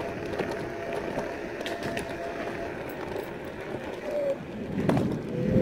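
Electric scooter with a 1000 W brushless DC motor riding over paving blocks: a thin steady motor whine over tyre rumble and fabric rubbing from a phone carried in a pocket. The whine fades about halfway through and returns near the end, rising slightly, as a louder low rumble builds.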